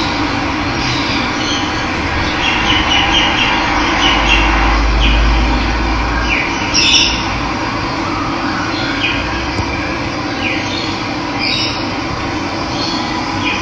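A steady rush of running water with wild birds chirping over it in short rising and falling calls.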